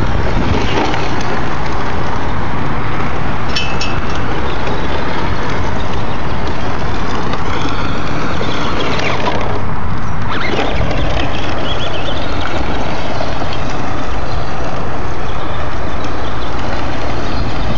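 Radio-controlled short-course truck driving over gravel, its motor whining up and down about halfway through, under a loud steady rushing noise.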